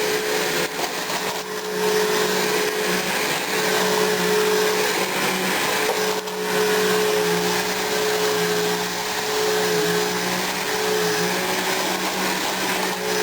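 A 12-amp Bissell household vacuum cleaner runs steadily with a motor whine over rushing air as it sucks up debris from the carpet. The pitch dips slightly a few times as it takes load.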